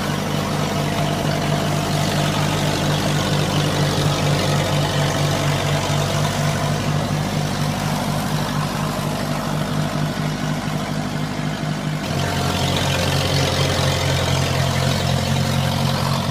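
Diesel tractor engine chugging steadily at low revs with an even pulse. Its low note shifts about twelve seconds in.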